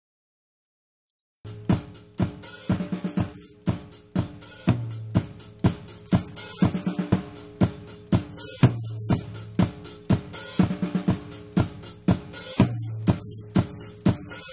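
Dead silence, then about a second and a half in a recorded drum kit groove starts: kick, snare and hi-hat in a fast steady pattern with cymbals, over a low bass note that swells about every four seconds.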